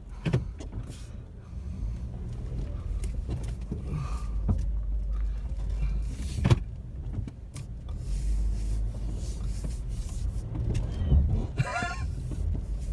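Low, steady rumble of a vehicle crawling over rutted snow, heard from inside the cabin. A few knocks come from the bumpy road, the sharpest about six and a half seconds in.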